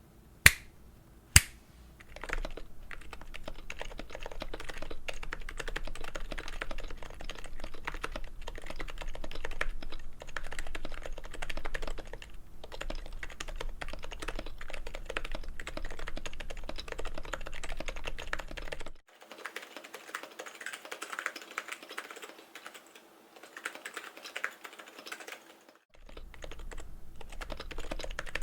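Typing on a Norbauer Heavy Grail keyboard with a brass plate, Topre-style switches and Topre keycaps: a dense, continuous run of keystrokes. Two sharp, loud knocks come in the first second and a half, before the typing starts. The typing sounds thinner and quieter for several seconds past the middle.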